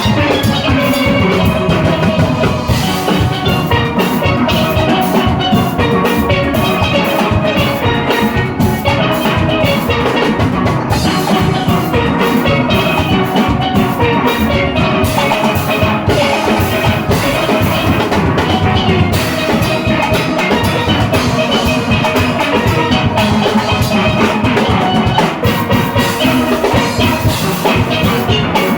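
Steel orchestra playing a fast soca tune, massed steelpans carrying the melody over a drum kit and percussion, with a steady beat.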